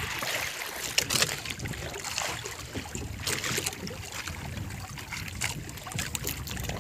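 Water lapping and splashing against the side of a small wooden outrigger boat, with a few short sharp noises, the loudest about a second in.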